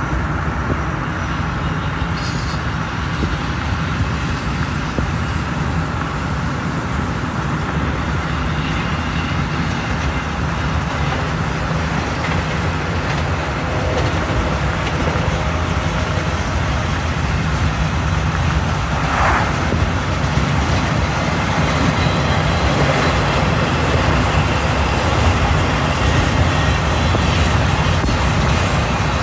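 Steady low rumble from a vehicle driving alongside a moving freight train of intermodal well cars: road noise mixed with the train rolling on the rails. It grows slightly louder, with a brief hiss about two-thirds of the way through.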